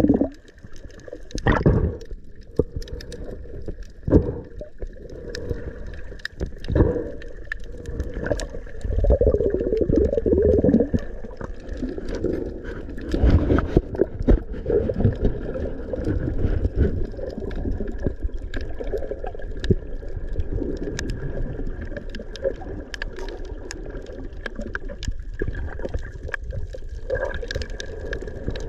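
Underwater sound heard through an action camera's housing: muffled water movement and bubbling, with scattered knocks and clicks as the camera and spear are handled.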